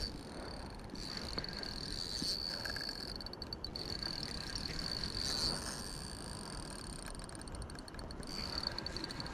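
Night insects trilling: a steady high-pitched trill that twice breaks into fast pulsing, over a low rushing background.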